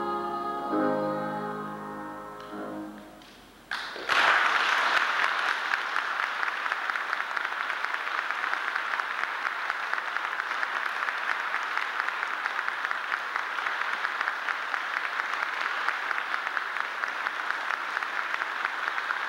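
Two boy sopranos and a boys' choir sing the last notes of a slow, tender piece, which die away over about three seconds. About four seconds in, the audience breaks into applause, which carries on steadily through the rest.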